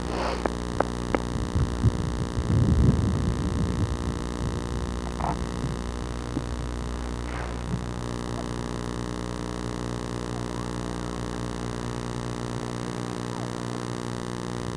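A steady low hum with many evenly spaced overtones, with a few clicks and a brief low rumble in the first three seconds.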